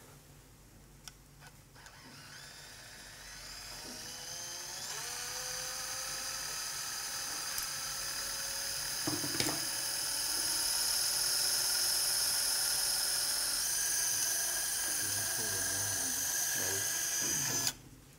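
Surgical power drill spinning up about two seconds in, then running with a steady high whine until it stops abruptly near the end, drilling a screw hole for the pelvic fixation.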